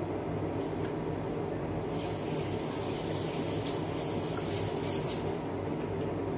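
A lidded pot of chicken cooking on the stove under a running kitchen range-hood fan, with a steady hum and a dense watery rush throughout. A brighter hiss swells from about two seconds in and falls back near five seconds.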